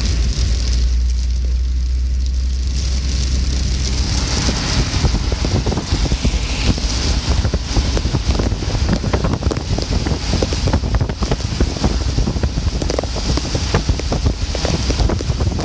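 Rain falling hard, with many dense drop hits, while gusting wind buffets the microphone with a low rumble.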